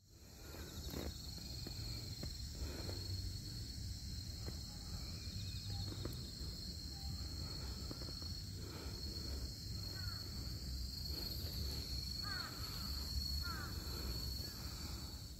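Outdoor ambience: a steady high-pitched insect chorus over a low rumble, with a bird calling a few times near the end.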